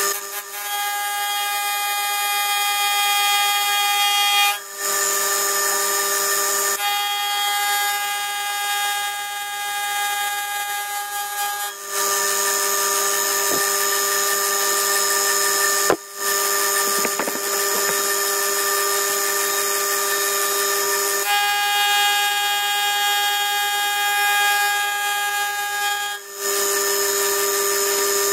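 Homemade milling cutter with two APMT carbide inserts milling a shoulder in cold-rolled steel on an old milling machine: a steady ringing whine over the cutting noise. The whine breaks off briefly and shifts its pitch several times.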